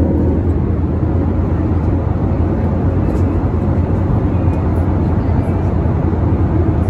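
Steady cabin noise of a twin-engine Airbus A320-family jet in flight: a loud, even drone of engines and rushing air, heaviest in the low end.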